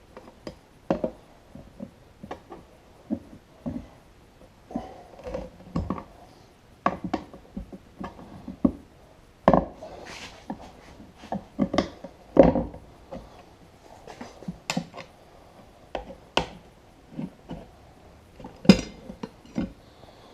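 Hand tools knocking, clanking and scraping against a lawn mower wheel rim while a stubborn tire is levered off it, in irregular strikes about one or two a second. The loudest strike comes near the end.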